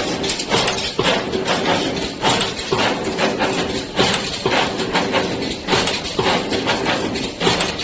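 2D CNC wire bending machine running, with a rapid, irregular series of metallic clacks and knocks from wire feeding and bending over a steady motor hum.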